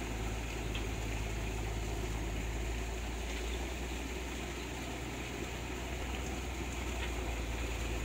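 Fast, swollen stream water rushing over rocks: a steady, even rushing noise with a deep rumble underneath.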